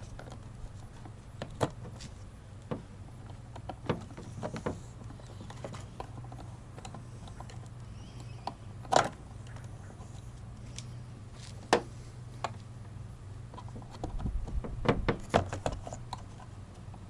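Scattered light clicks and taps of a screwdriver and the plastic mirror housing being handled while the housing screws are backed out, with a busier run of clicking near the end. A steady low hum lies underneath.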